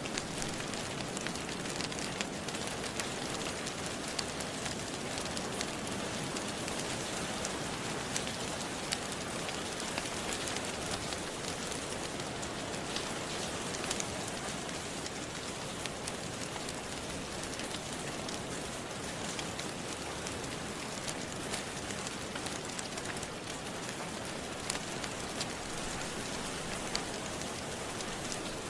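Steady rain falling, with scattered small crackles and pops from a wood fire in a fireplace.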